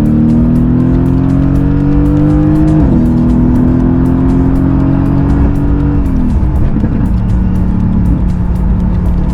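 Mercedes-AMG GT S twin-turbo V8 heard from inside the cabin, accelerating with the revs climbing. The pitch drops sharply at two upshifts, about three seconds in and again about six seconds in, then holds steady.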